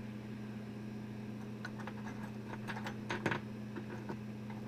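Light clicks and rattles of small metal hardware being handled off to the side, a scatter of clicks through the middle with a louder pair just past the halfway point, over a steady low hum.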